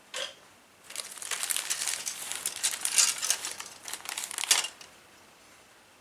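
Plastic wrapping crinkling as model kit parts are handled, a crackly rustle lasting about four seconds that begins about a second in.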